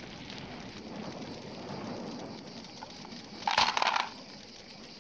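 A metal jerrycan clattering onto rock and road for about half a second, some three and a half seconds in, over a steady low crackle of burning brush.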